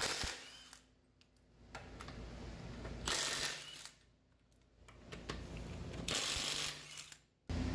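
Hand tools at work on a truck: metal clinks and ratchet-wrench clicks, broken up by a few short stretches of rushing noise.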